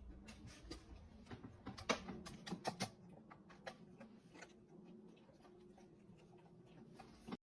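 A run of irregular light clicks and taps, several a second, thickest and loudest in the first three seconds, over a faint low hum; the sound cuts off sharply near the end.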